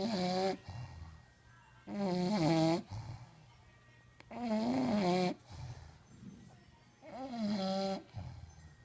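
Bulldog snoring: four loud, pitched, wavering snores about two and a half seconds apart, each followed by a softer breath.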